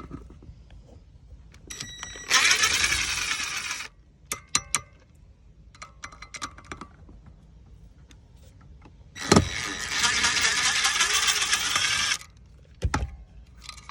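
Hands working on a plastic boat remote-control housing and its trim-switch wiring: small clicks and taps, and two stretches of loud scraping rustle, the second about three seconds long.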